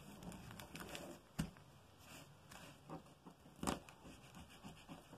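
Faint rustling of a paper pattern and fabric being handled and pinned on a table, with a few light clicks, the sharpest about one and a half seconds in and near four seconds in.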